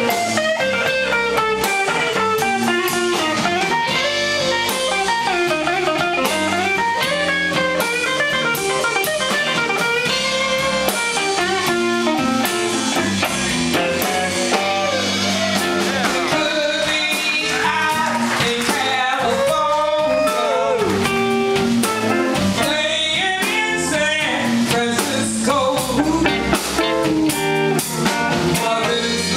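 Live blues band playing: an electric guitar solo on a hollow-body archtop guitar, with fast runs and bent notes over bass and drums.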